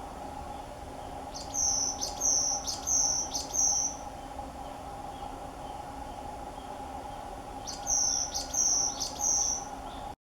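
Small songbird singing two phrases of repeated high, clear notes: four evenly spaced notes early, then three more about four seconds later, over a steady faint hum.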